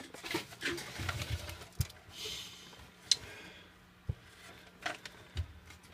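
Handling noise of light knocks, clicks and a short rub over a faint steady hum, as an amplifier is turned onto its side on the bench.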